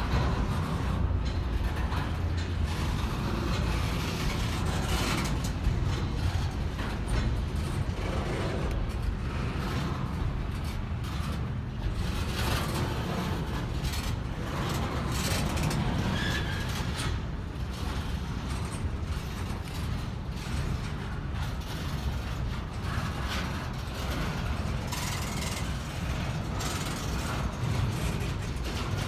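Intermodal freight train's double-stack container cars rolling slowly past: a steady low rumble with irregular clicks and clanks from the wheels and couplers.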